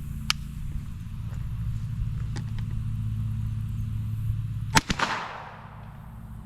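A single 9mm shot from a Kel-Tec SUB-2000 carbine, nearly five seconds in, with a short echo trailing off. A steady low hum runs underneath.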